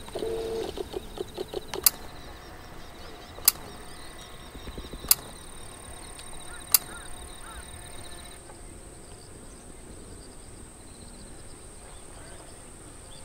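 Steady high insect trilling, with a short pulsing animal call in the first two seconds. Four sharp clicks come evenly spaced about a second and a half apart.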